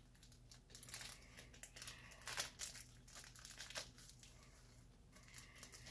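Hands kneading and pulling apart chunky homemade glue slime: faint, irregular sticky crackling and clicking, in little clusters.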